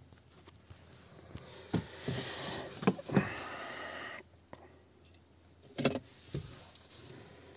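A car's power window motor whirs for about two seconds, with a short break, and stops suddenly, with clicks around it. A couple of knocks follow about six seconds in.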